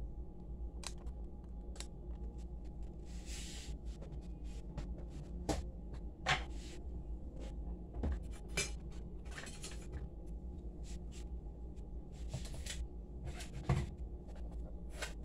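Kitchen counter handling sounds: scattered light clicks and knocks and several short scrapes as a plastic container and a spoon are handled, over a steady low hum.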